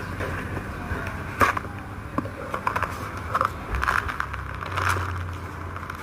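A cat eating: irregular crunches, clicks and scrapes, the loudest about a second and a half in.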